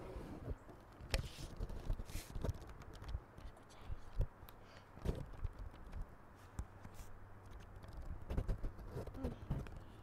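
Scattered soft taps and clicks at an irregular pace, with a few brief rustles.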